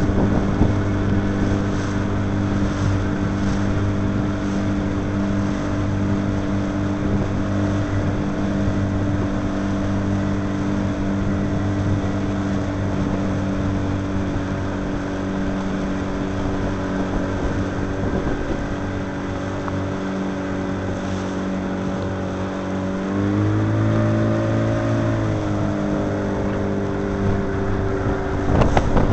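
Motorboat engine running steadily at an even pitch. About twenty-three seconds in it revs up for a couple of seconds, then settles back to its earlier speed.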